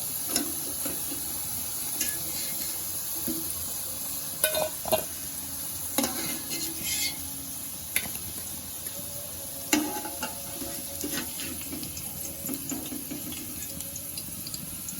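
Potatoes frying in hot oil with a steady sizzle. A utensil knocks and scrapes against the pot several times as the pieces are stirred and lifted out.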